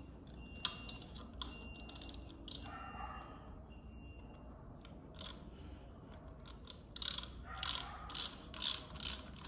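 Bicycle handlebar gear shifter clicking as its levers are worked through the gears: scattered ratchet clicks, then a quicker run of louder clicks near the end.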